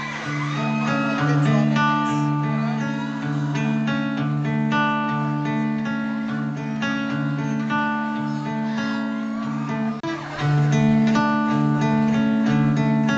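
Two acoustic guitars playing a slow, repeating picked chord pattern with ringing notes.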